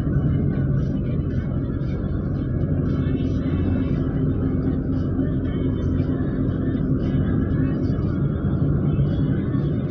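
Steady low road and engine rumble of a moving car, heard from inside the cabin, with a steady low hum.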